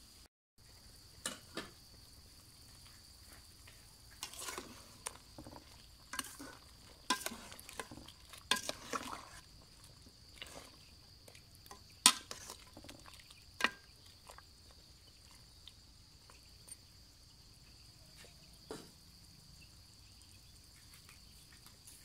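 A utensil stirring and knocking in a large aluminium pot of boiling chicken, with scattered scrapes and clinks that are busiest in the middle. One sharp clink, the loudest sound, comes about twelve seconds in. A steady high insect trill, from crickets, runs underneath.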